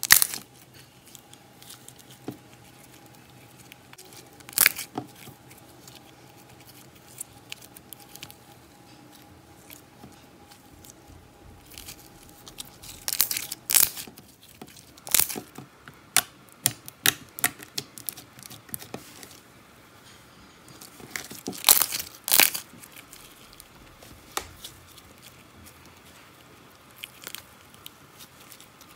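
Homemade slime being stretched, folded and squeezed between the hands, crackling and giving irregular sharp pops, the loudest coming in small clusters a few seconds apart.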